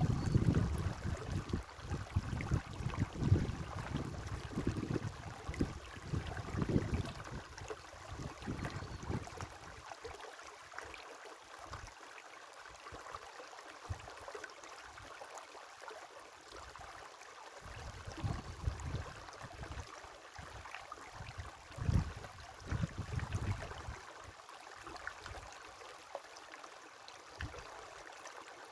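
River water flowing steadily, with bouts of low rumble that swell and fade, heaviest in the first nine seconds and again later on.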